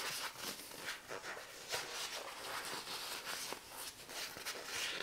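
Faint rustling and scraping of foam padding being wrapped in a spiral up the leg and smoothed by hand, with a few light ticks.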